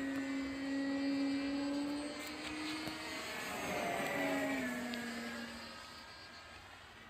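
Electric motor and propeller of a foam RC plane whining steadily in flight as it flies past: the pitch drops about four and a half seconds in, then the sound fades.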